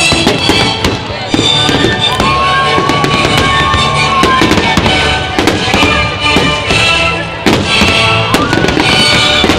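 Fireworks salute going off overhead: rapid, overlapping bangs and crackling shell bursts.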